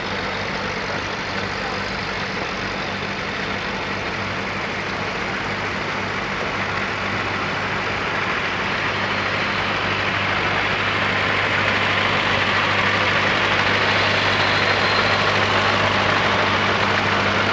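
Antique Empire tractor's engine running steadily as it passes, the sound growing gradually louder over the last several seconds.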